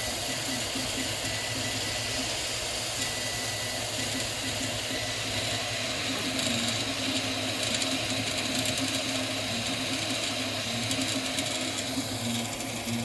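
Anet A8 Plus 3D printer running a print: its stepper motors whir in a tone that keeps shifting in pitch as the axes move, over a steady hum.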